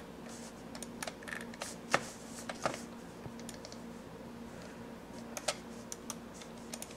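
Irregular light clicks from a computer mouse being clicked and scrolled, the loudest about two seconds in, over a faint steady low hum.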